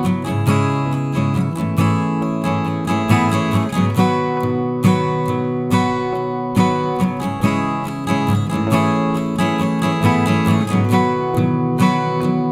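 Background music: acoustic guitar strumming in a steady rhythm.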